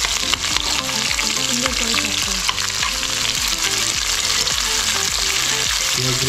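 Sliced onions sizzling in hot oil in a metal kadai, with a steady crackling hiss, while a perforated steel ladle stirs and scrapes them against the pan. It is the first stage of the dish: the onions are being fried until brown.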